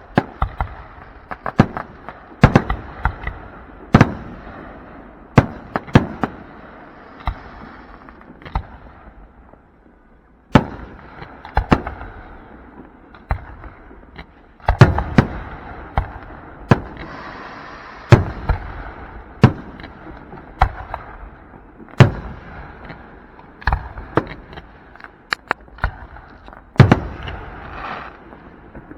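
Aerial fireworks going off one after another: many sharp bangs, roughly one or two a second, over a steady noisy background, with a brief lull about nine seconds in.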